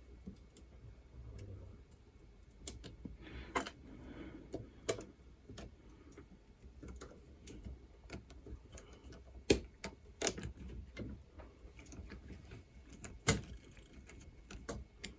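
Scattered metal clicks and clacks as a uPVC door lock's bolt work is fitted back onto its gearbox, the lugs being seated into the gearbox. Several louder knocks come about nine and a half, ten and thirteen seconds in.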